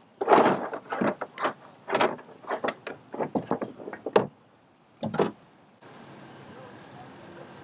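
Handling noise of a just-caught crappie being worked with at the side of a fishing kayak: a string of irregular rustles, scrapes and knocks for about four seconds, then one more short burst. Just before six seconds this changes suddenly to a steady low hiss.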